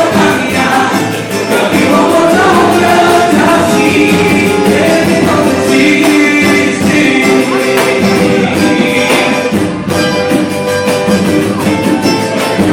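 Samba group playing a gospel samba song: voices singing over a steady, busy beat of hand percussion.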